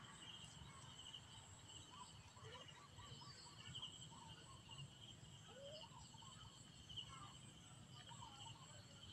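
Faint outdoor ambience: insects chirring steadily in a high, pulsing tone, with scattered faint chirps over it.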